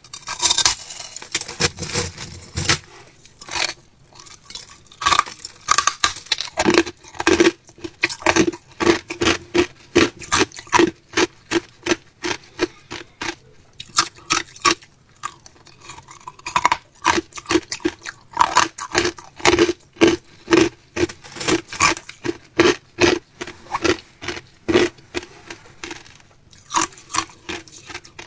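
Crushed ice being bitten and chewed close to the microphone: a long run of sharp, brittle crunches, often two to three a second.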